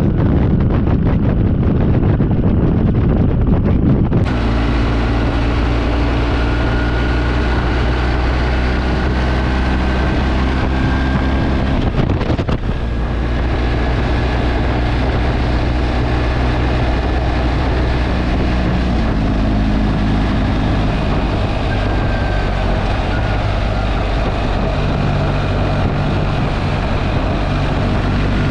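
Motorcycle on the move, with heavy wind buffeting the microphone for the first few seconds. After that the engine's steady drone comes through under lighter wind noise, with a brief dip about twelve seconds in.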